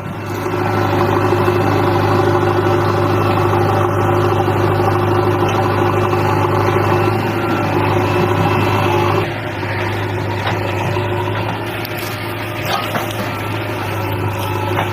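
Diesel engine of heavy earth-moving machinery running steadily with a deep drone, dropping a little in loudness about nine seconds in.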